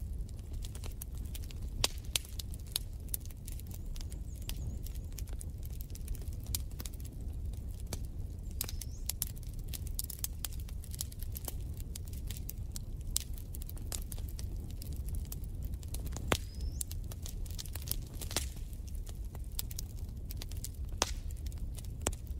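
Wood fire crackling in a fireplace: frequent sharp pops and snaps over a low, steady rumble of the flames.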